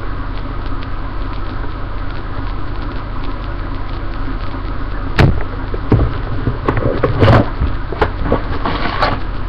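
Steady electrical hum and hiss from a webcam microphone; from about five seconds in, a run of short knocks, clicks and rustles as packaging and small toy pieces are handled.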